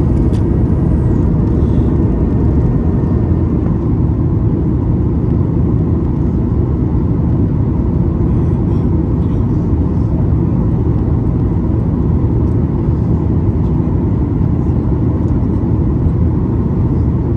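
Steady cabin noise inside a Boeing 737 MAX 8 in flight: a constant low rush of airflow and CFM LEAP-1B engine noise, with a faint steady whine above it.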